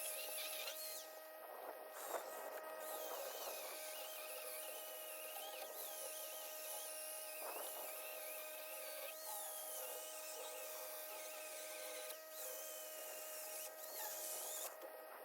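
Portland 14-inch corded electric chainsaw running with a steady high electric-motor whine, a wavering higher note riding on top.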